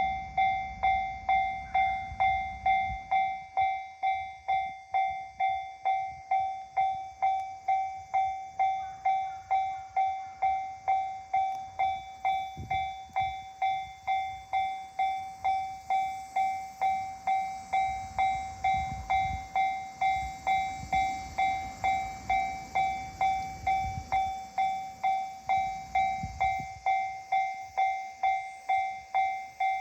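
Japanese level-crossing warning bell ringing steadily at about two strikes a second, each strike decaying before the next. A train rumbles past in the low range for several seconds in the middle.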